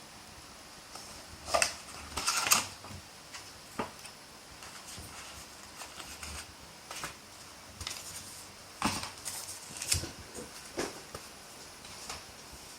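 Handling of a plastic and metal phone case: scattered clicks, taps and light rustles at an uneven pace, with a louder cluster about a second and a half in and another about nine to ten seconds in.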